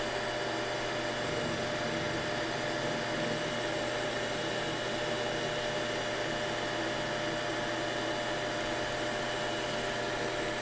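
Manual metal lathe running steadily at high speed, a constant machine hum with a faint steady whine, while the end of a cold-rolled steel blank in a collet chuck is faced off.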